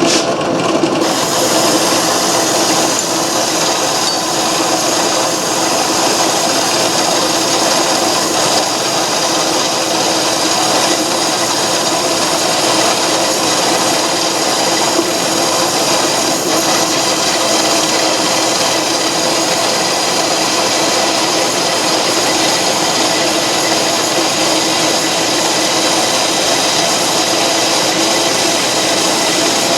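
Antique Garvin metal lathe running steadily under power, turning down the outside diameter of a metal adapter blank. The motor and drive hum with a steady cutting noise that does not let up.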